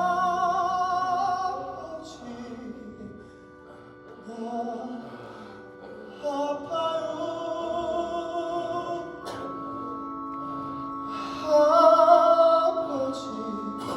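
Slow song from a stage musical: a singer holds long notes with vibrato in three phrases over sustained instrumental chords, the last phrase the loudest.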